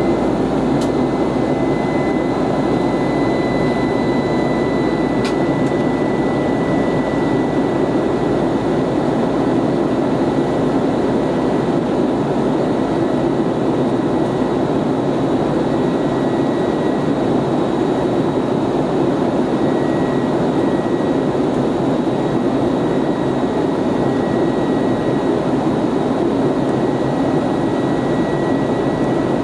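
Steady cabin noise of a jet airliner in flight, heard from a seat beside the wing: the turbofan engines and airflow make an even rush, with a faint high whine held through it. Two faint clicks come about a second in and about five seconds in.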